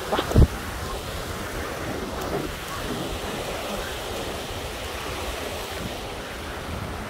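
Small surf breaking and washing up on a sandy beach, a steady rush, with wind buffeting the microphone. A short low thump about half a second in.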